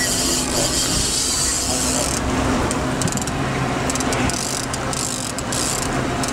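Fishing reel's drag clicking in a fast ratchet as a hooked salmon strips line off it, over the steady hum of the boat's engine. The run eases about two seconds in, and the clicking then comes in short spurts.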